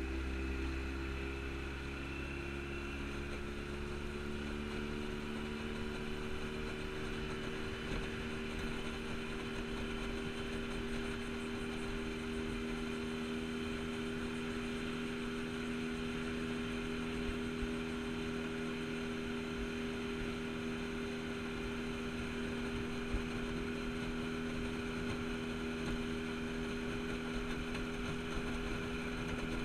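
Outboard motor pushing a jon boat under way, running at a steady speed, its pitch climbing slightly over the first several seconds and then holding, over a steady rush of water and wind.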